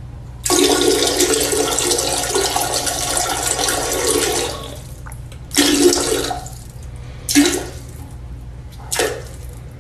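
Toilet flushing: a loud rush of water lasting about four seconds, followed by three short, sharp noises about a second and a half apart, over a steady low hum.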